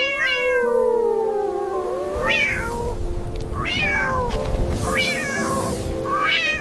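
A cat meowing over and over, about five meows a little over a second apart, each rising and then falling in pitch, with background music under it.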